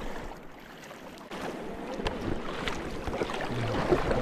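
River water rushing around a raft, with wind buffeting the microphone and a few light knocks. The rush dips about a second in, then grows louder.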